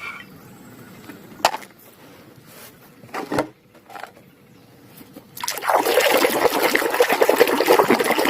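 A few light knocks of plastic toys being handled, then about five seconds in water starts running steadily and loudly over a muddy plastic toy animal as it is washed clean.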